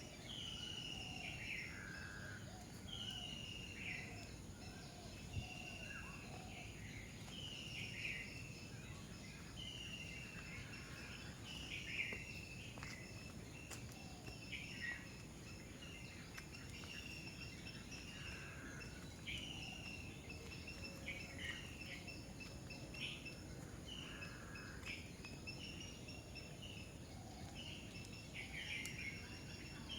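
A bird calls again and again, a short falling phrase about every second and a half, over the steady high trill of insects.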